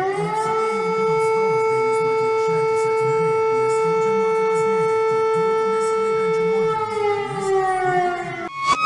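Civil-defence-style siren winding up to a steady pitch, holding it for about seven seconds, then winding slowly down and cutting off abruptly just before the end. A faint wavering low tone runs underneath.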